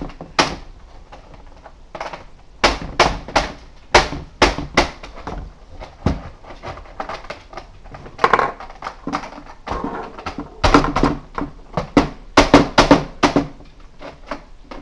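Hard plastic clicks and knocks in irregular clusters as a Nerf Mega Centurion blaster is handled and worked on by hand.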